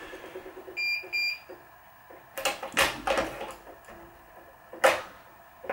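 Two short electronic beeps from the Wise 2086 tension head about a second in, then several sharp clicks and knocks of clamp and string handling on the stringing machine, with one more click near the end.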